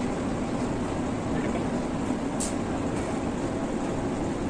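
Steady mechanical hum, with one brief high click about two and a half seconds in.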